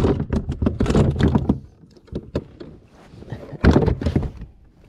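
Rapid knocks, thumps and rustling against a plastic kayak hull as a hooked flounder thrashes while being landed, with a second loud burst of knocks near the end.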